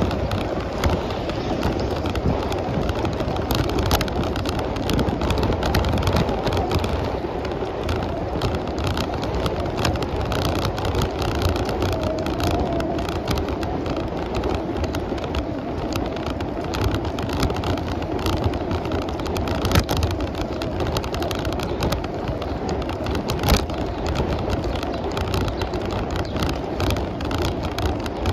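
Bicycle riding on a paved road: steady tyre and wind noise with frequent small clicks and rattles.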